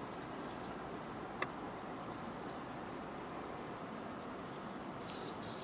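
Steady outdoor background noise with scattered high chirping, and a single sharp click about one and a half seconds in.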